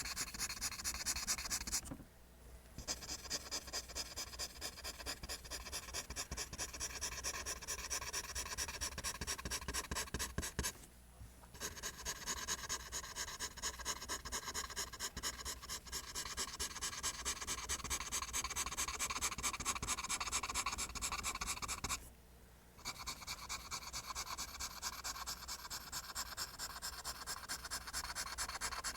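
Graphite pencil drawing lines on paper in rapid, rhythmic back-and-forth strokes, stopping briefly three times.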